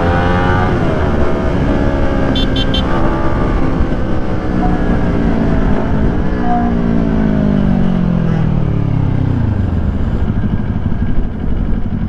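Kawasaki Ninja 400 parallel-twin through a Yoshimura R11 full exhaust system, heard from inside the rider's helmet. The engine note rises and dips with the throttle, then falls away steadily over several seconds as the bike slows, and settles to a steady idle near the end as it comes to a stop.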